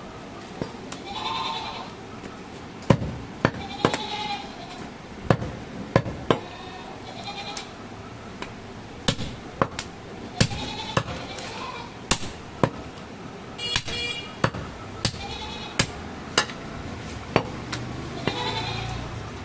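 Meat cleaver chopping goat meat on a wooden chopping block in sharp, irregular strokes, with goats bleating again and again between the chops.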